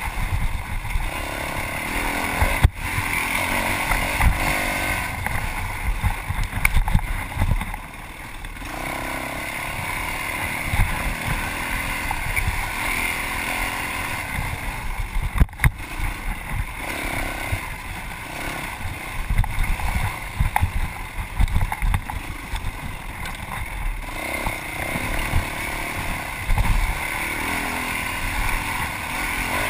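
Yamaha WR450F 450 cc four-stroke single-cylinder dirt bike engine revving up and down as it is ridden hard over rough off-road trail, with constant thumping from the terrain. A sharp knock about three seconds in and another about halfway through.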